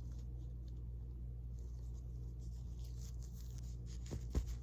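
Light rustling and handling of unboxed baby items and their wrapping, with a couple of soft knocks near the end, over a steady low hum.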